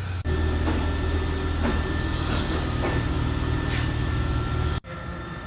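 Mercedes-Benz ML350's freshly installed replacement V6 engine idling steadily under the hood, a low even hum with faint ticks about once a second. It cuts off abruptly near the end to a quieter steady hum.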